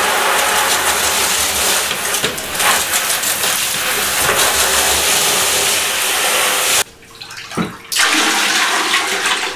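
Handheld shower spraying water into a plastic cage tray in a bathtub, a steady rushing hiss that cuts off about seven seconds in. About a second later, water is poured from the tray into a toilet bowl, splashing.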